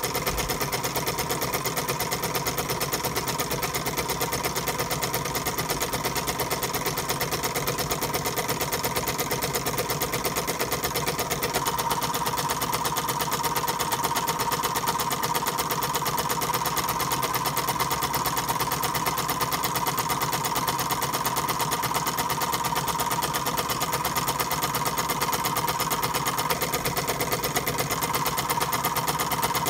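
Meccano-built twin-cylinder steam engine with 1950s Mamod oscillating cylinders running steadily on steam from its copper boiler: a fast, even chuffing beat of exhaust and moving parts. The engine is still being run in, and it gets a little louder about twelve seconds in.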